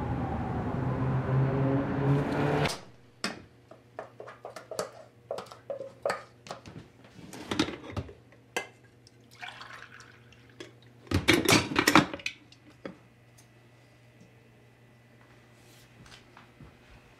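Street traffic noise with a wailing siren cuts off abruptly about three seconds in, giving way to kitchen sounds: cups, glasses and utensils clinking and knocking on a counter, a short pour of liquid, and a loud flurry of clatter near the middle.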